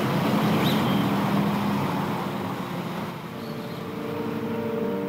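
Steady rushing background noise, then held organ chords coming in about three seconds in.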